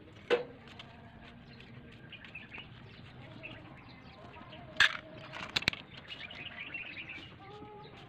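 Birds chirping, with a few sharp knocks of a hand tool against the stair's tile trim: one just after the start, a louder one near five seconds, then two quick clicks.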